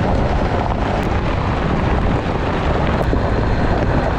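A vehicle driving: a loud, steady rumble of running and road noise with wind buffeting the microphone.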